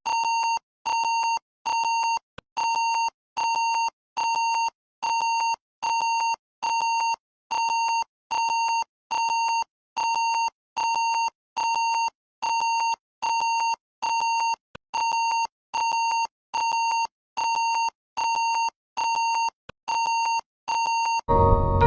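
Emergency-alert-style electronic beeping: one buzzy, mid-pitched tone repeating at an even pace, about five beeps every four seconds, each about half a second long, some two dozen in all.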